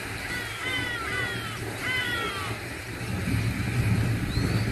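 Short high-pitched animal calls, each falling in pitch, come in quick clusters of two or three, with a single rising call near the end. A steady low rumble runs underneath.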